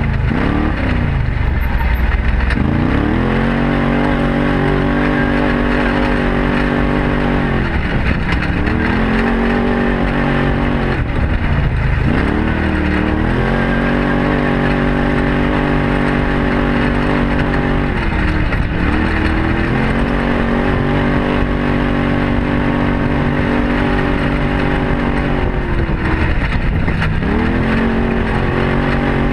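Arctic Cat Wildcat side-by-side's engine running steadily, its note dipping and climbing back about five times.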